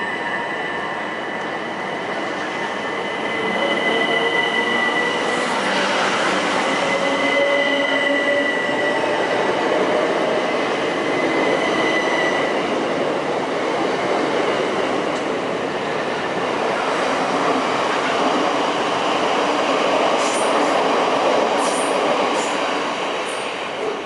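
Bombardier Electrostar Class 377 electric train pulling away and accelerating past. Its electric traction motors whine, with tones that slowly rise in pitch as it picks up speed, over the steady noise of wheels on the rails. A few sharp clicks come near the end, and the sound falls away as the last carriage leaves.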